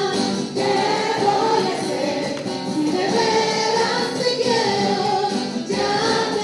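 A woman singing a Mexican popular song live into a microphone, amplified through a PA speaker, with acoustic guitar accompaniment. The song comes in sung phrases with long held notes.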